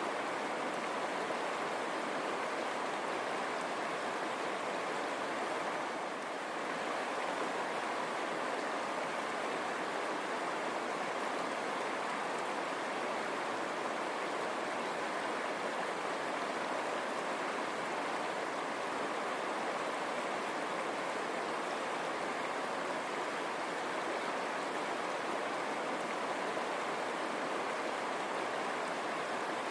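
River water running over stones, a steady rushing babble.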